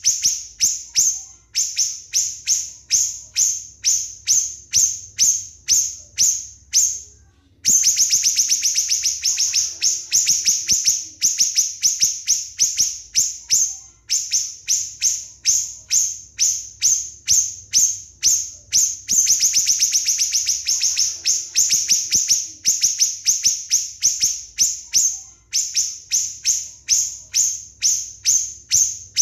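A small songbird's rapid, repeated sharp notes, each a quick downward sweep high in pitch, about three to five a second, in long runs with brief pauses. This is the fast, hammering 'nembak' song used as masteran to train cage birds.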